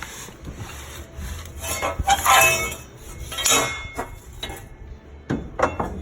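Scraping and rubbing as a pickup's fuel tank is jacked up against the frame: two rasping scrapes, the first the louder, then a few light knocks near the end.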